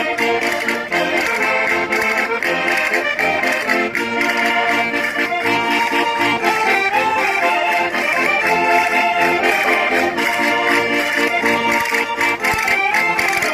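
Concertinas, Portuguese diatonic button accordions, playing a lively traditional folk dance tune with a fast, steady beat.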